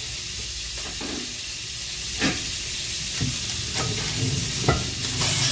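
A few light clicks and knocks of new bowls and their packaging being handled, over a steady hiss.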